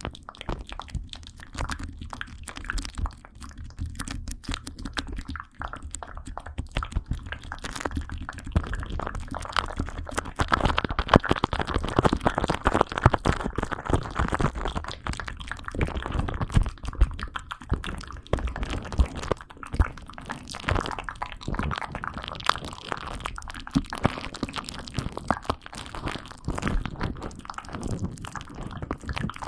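Close-miked ASMR trigger sounds: a steady run of fine crackling and clicking, busier and louder through the middle stretch.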